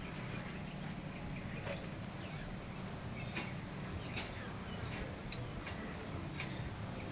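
Quiet outdoor background: a steady low hum and a thin, steady high-pitched whine, with a few short sharp ticks or chirps in the second half.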